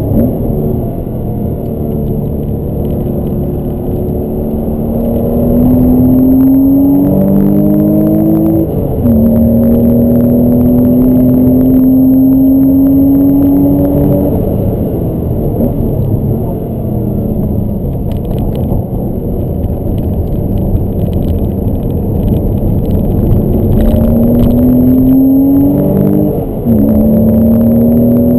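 Porsche 986 Boxster S's flat-six engine pulling hard, heard from inside the cabin with the soft top up. The revs climb and drop sharply at an upshift about nine seconds in, ease off through a stretch in the middle, then climb again to another upshift near the end.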